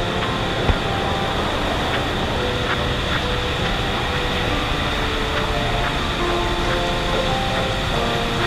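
Container ship's engine-room machinery running with a loud, steady din.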